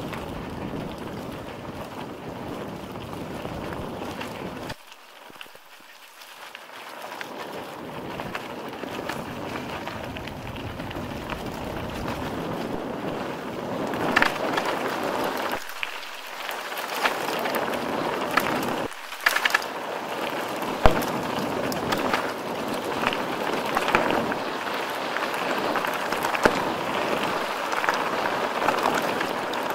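Mountain bike rolling downhill on a trail, its tyres running over rough ground with wind rushing on the microphone. It grows louder about halfway through, with frequent sharp knocks and rattles from the bike going over bumps.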